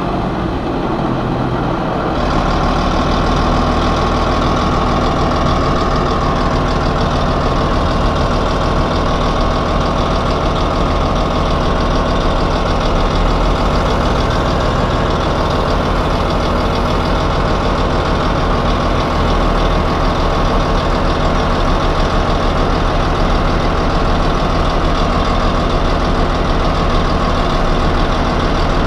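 The heavy diesel engine of a truck-mounted wood chipper running steadily at constant speed, with a deep hum and a broad hiss above it. A higher hiss comes in about two seconds in.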